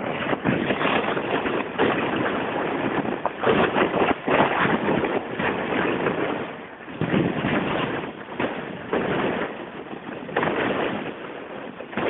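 Wind buffeting the microphone of a camera riding in a moving vehicle, with road noise: a loud, uneven rush that surges and drops every second or so.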